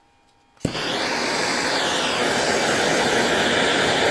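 MAP gas hand torch flame hissing loudly and steadily, starting abruptly about half a second in.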